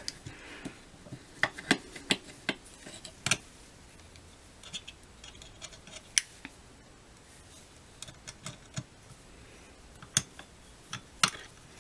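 Small metal clicks and taps of a Tillotson carburetor and its throttle linkage being handled and hooked onto a chainsaw. The clicks come scattered, thickest in the first few seconds and again near the end.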